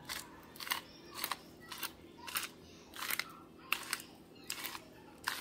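Hand-twisted salt grinder crushing coarse pink salt crystals, a short gritty crunch with each twist, about two a second.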